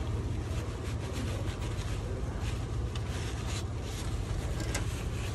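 Paper rag rubbing against a Sea-Doo hull as it wipes excess Sikaflex sealant from around the bilge drain plug, in irregular scratchy strokes over a steady low hum.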